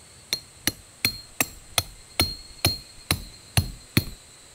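Peg hammer driving a titanium tent peg into the ground: ten sharp, evenly paced blows, about two and a half a second, with a short metallic ring after several of them.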